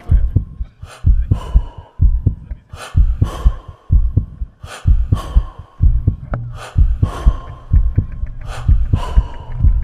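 Background music with a steady, heavy drum beat, about two kicks a second.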